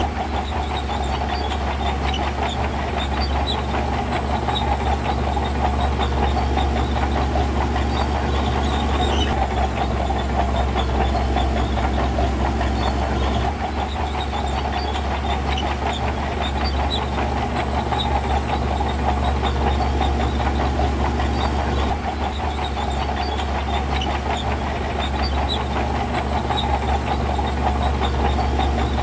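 Heavy earthmoving machinery's diesel engine running steadily under load, with a constant metallic clatter.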